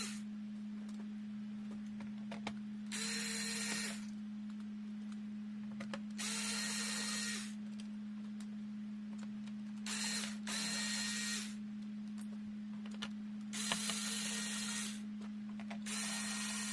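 A small power tool's motor running in short bursts of about a second, six times, over a steady electrical hum.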